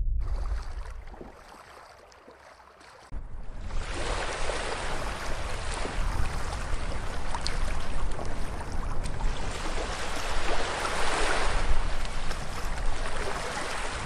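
Rushing, churning water: a dense hiss that cuts in suddenly about three seconds in, after a low rumble fades away, and swells louder near the end.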